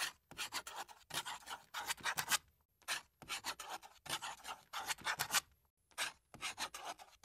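Pencil drawing on paper: quick scratchy strokes in clusters of several at a time, broken by short pauses.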